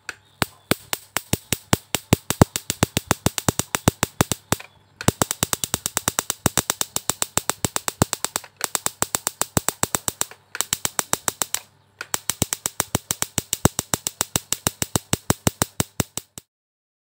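Rapid, even train of sharp electrical snaps, about six a second, with a few short breaks: high-voltage sparks from a mosquito racket (electric fly swatter) wired to the pins of a CRT picture tube. The tube is being zapped to treat a dark picture with the sound still working.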